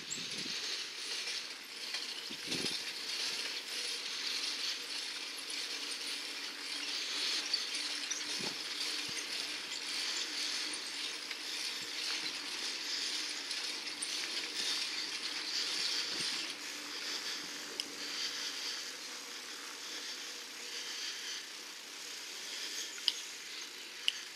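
A bicycle riding over brick street paving: a steady hiss with light rattling and scattered clicks, and a few sharper clicks near the end.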